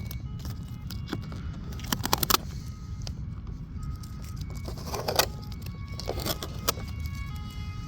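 Handling noises of the RC boat being opened and worked on: a few sharp clatters and rattles, the loudest about two seconds in and again around five seconds, over a steady low rumble.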